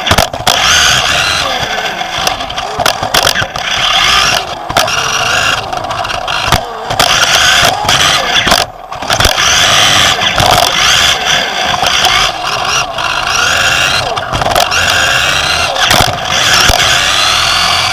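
Onboard sound of a 1:10 electric 2WD off-road buggy racing: the electric motor and drivetrain whine rising and falling with throttle, tyres scrabbling on the track, and repeated sharp knocks from the chassis hitting bumps and landing jumps. The sound drops briefly about nine seconds in.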